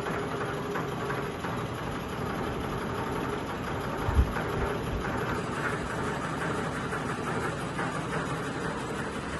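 Sony ceiling fan running noisily at full speed, a steady rough whirring that comes with the fan's heavy wobble and vibration. A single low thump about four seconds in.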